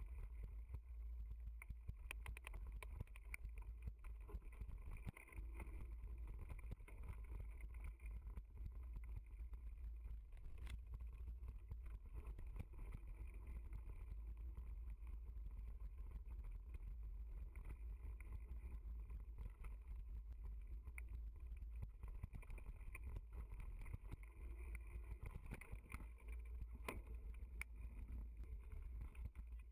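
Mountain bike riding fast down a dirt and gravel trail, heard from a camera mounted on the bike. Wind rumbles on the microphone throughout, with frequent clicks and rattles as the bike goes over bumps.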